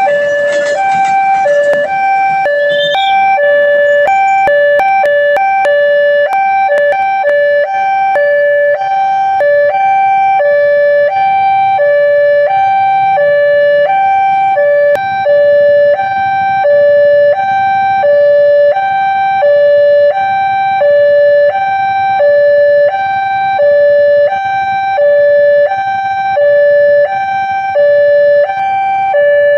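Railway level-crossing warning siren sounding its two-tone alarm, a high and a low tone alternating, each held about half a second, signalling that the barrier is closing for an approaching train. A few sharp clicks sound over it in the first several seconds.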